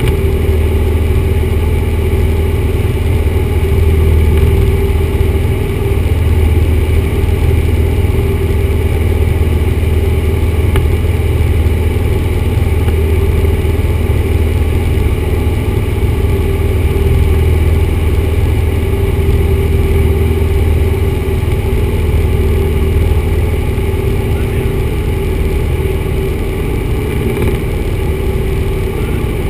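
Steady drone of a 1974 Cessna 172's four-cylinder Lycoming engine and propeller in level flight, heard inside the cabin.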